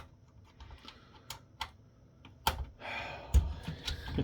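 Irregular light clicks and taps, with a short scrape about three seconds in, as a screwdriver works out the remaining screws of the conferencing unit.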